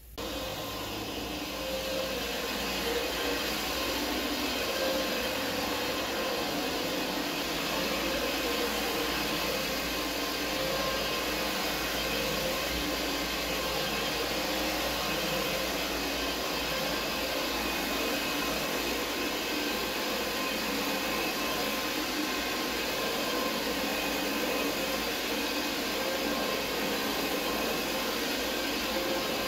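Corded electric carpet-cleaning machine running steadily as it is pushed back and forth over low-pile commercial carpet. The motor starts abruptly at the very start and holds one even, continuous note.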